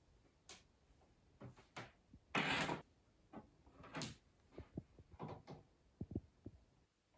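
Cables and plugs being handled on a wooden desk: irregular small clicks and knocks, with a longer scraping rustle about two and a half seconds in, and short clicks near the end as a plug is pushed into a power strip.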